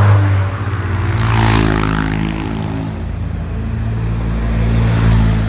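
Road traffic: vehicle engines run with a steady hum, and a car passes close by about one and a half seconds in, swelling and dropping in pitch as it goes. Another vehicle swells past near the end.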